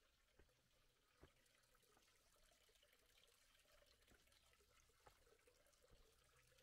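Near silence: faint outdoor ambience with a few soft, scattered ticks.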